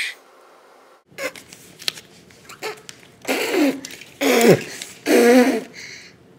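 A toddler's voice making three short, silly vocal noises about a second apart, each falling in pitch, after a few faint taps.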